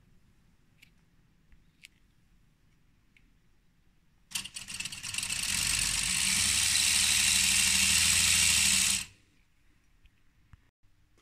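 LEGO pneumatic inline three-cylinder engine (LPE Power SYS Inline 3) running on compressed air fed from a can: about four seconds in, a rapid clatter starts and quickly builds into a loud, steady rush of escaping air over a low hum, which cuts off suddenly about five seconds later.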